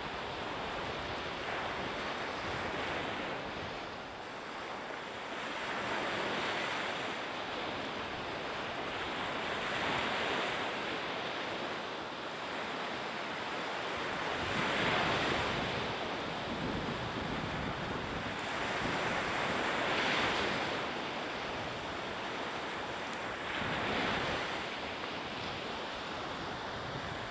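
Rushing sound of sea waves and wind, swelling and fading about every four to five seconds.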